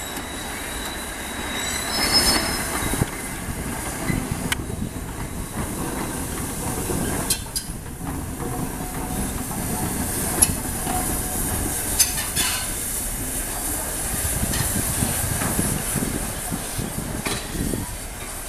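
Peppercorn A1 Pacific steam locomotive 60163 Tornado and its coaches moving slowly over station pointwork: a steady rumble of wheels on rail, brief squeals from the wheels and several sharp metallic clanks.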